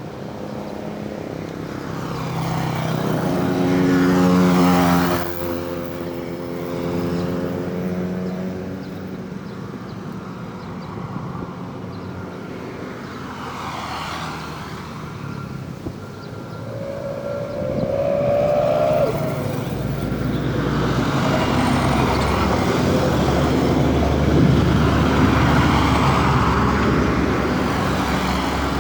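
Road traffic: vehicles passing one after another, each engine swelling and fading as it goes by, the loudest about four to five seconds in. Past the middle comes a short, slightly rising horn blast, and after it a heavier vehicle rumbles past for the rest of the time.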